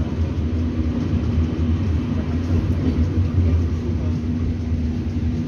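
Tram running along the street, heard from inside the car as a steady low rumble with a faint steady hum above it.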